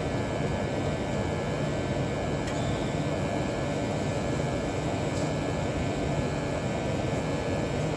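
Day and Night N80ESN 80% gas furnace running at full fire: a steady rush of air and hum from the blower, inducer and burners.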